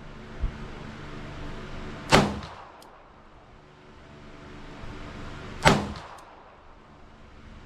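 Two shots from a Smith & Wesson 642-1 Airweight .38 Special snub-nose revolver, about three and a half seconds apart, each a sharp crack with a short echoing tail.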